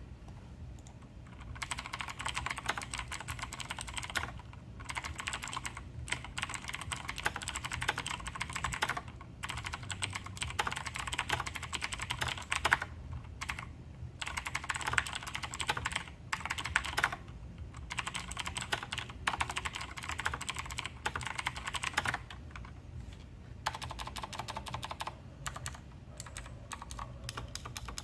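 Razer BlackWidow Tournament Edition Chroma V2 mechanical keyboard with clicky Razer Green switches being typed on quickly, in runs of rapid keystrokes separated by short pauses.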